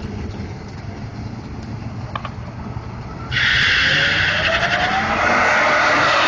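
Drag-racing engines rumbling low, then about three seconds in a sudden loud rush of engine and tyre noise with a rising engine note as the vehicles go hard on the throttle.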